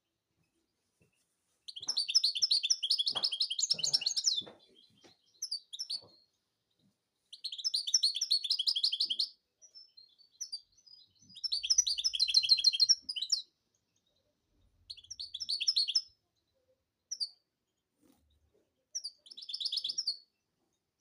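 European goldfinch singing: five phrases of rapid, high twittering notes, each one to two and a half seconds long, separated by short pauses with a few single high notes between them.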